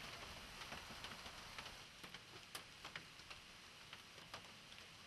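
Near silence: a low hiss with faint, irregular ticks scattered through it.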